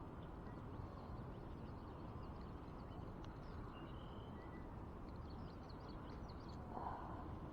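Faint bird calls, short chirps, whistles and quick trills, over a steady low rush of outdoor background noise, with a brief brushing noise near the end.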